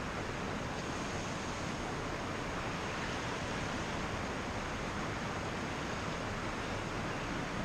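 Steady, even hiss of outdoor background noise, with no distinct sounds in it.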